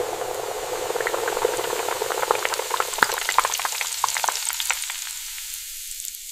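Hot oil in a deep fryer sizzling steadily around a basket of shrimp and scallops, with dense popping and crackling. The sound grows thinner toward the end.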